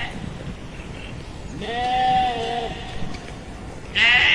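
Sheep bleating: one drawn-out baa of about a second in the middle, and another beginning near the end.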